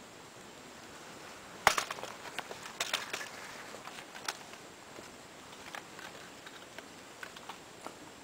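Footsteps and small crackles on dry pine needles and twigs: scattered snaps, the loudest a little under two seconds in, a cluster up to about three seconds and one more just after four, then only faint ones.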